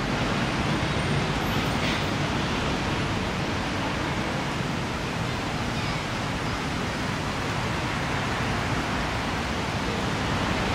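Steady, even rush of road traffic noise with no single vehicle standing out.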